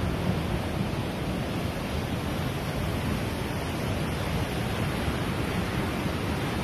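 Fast-flowing floodwater rushing, a steady, unbroken roar of water.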